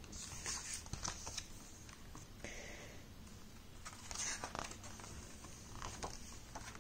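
Paper pages of a children's picture book being turned by hand: several soft rustles and brushes of paper.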